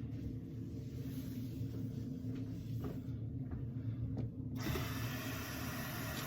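Tap left running while the water warms up: a steady low hum under the flow, with a few faint ticks, and an even hiss that rises sharply about four and a half seconds in.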